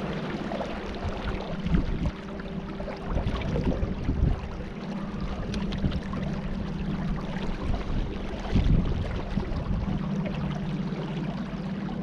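Boat motor running at a steady pitch under continuous water and wind noise, with a few low thumps spread through.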